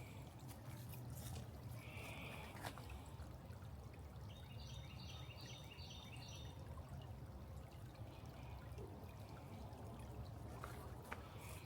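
Faint trickling of creek water falling over rocks, with a short run of quick high chirps about five seconds in.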